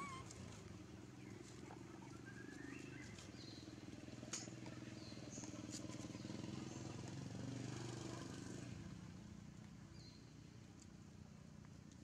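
A faint motor engine drones steadily, growing louder through the middle and easing off near the end. A few short high chirps and a single click sound over it.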